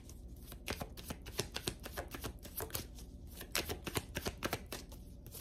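Tarot deck being shuffled overhand, cards flicking and tapping against each other in a quiet, uneven run of many short clicks.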